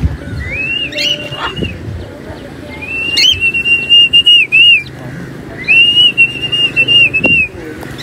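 A person whistling three long, high, steady whistles, each sliding up at the start and down at the end, the middle one the longest. This is a recall call to a free-flying pet bird.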